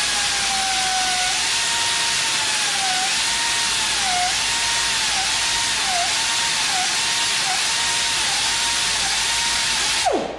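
Small air-powered buffer running flat out with a strong air hiss and a steady whine that dips in pitch again and again as the buffing pad is loaded while being cleaned of caked compound. It shuts off near the end, the whine falling as it spins down.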